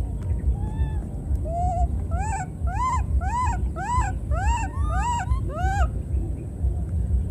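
Baby macaque crying: a run of about ten short whimpering calls, each rising and falling in pitch, about two a second, over a steady low rumble.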